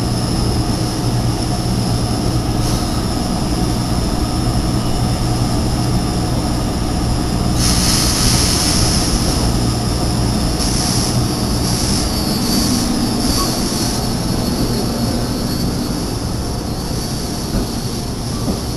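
SEPTA Kawasaki light-rail trolleys at a loop: a steady low hum from the trolleys' equipment, and a high wheel squeal as a trolley rounds the tight curve of track. The squeal grows much louder for a couple of seconds about eight seconds in, then comes back in shorter bursts a few seconds later.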